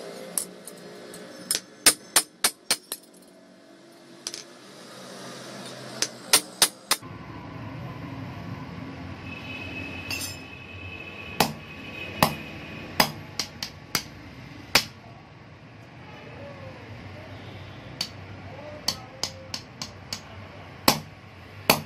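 Hand hammer striking hard on a steel anvil, sharp ringing blows in quick clusters of three to six with pauses between. In the later blows the hammer drives a punch, held in tongs, into a red-hot knife blade.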